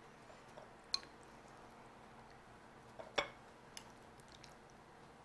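A metal fork clinking a few times against a glass bowl while lifting out roasted peppers, with soft wet squishes of the food in between. The sharpest clink comes about three seconds in.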